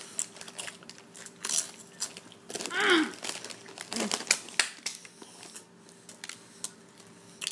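Crinkling and rustling of a foil chip bag as it is handled, with scattered crunchy clicks from chips being bitten. A brief wavering vocal sound about three seconds in.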